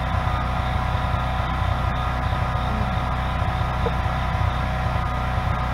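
Steady low mechanical hum holding several constant tones.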